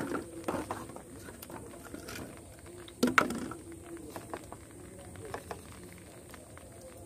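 Handling noises on a bamboo deck: plastic bottles set down and a hand working in a small steel bowl of flour, giving scattered light knocks and rustles, the loudest knock about three seconds in.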